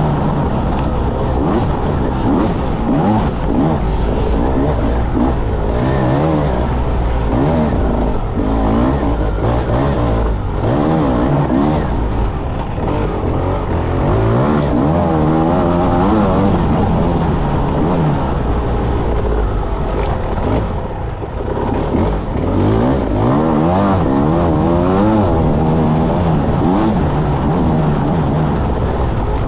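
Enduro motorcycle engine, heard on board, revving up and down continuously as the rider works the throttle over the course. The revs briefly drop off about two-thirds of the way through, then climb again.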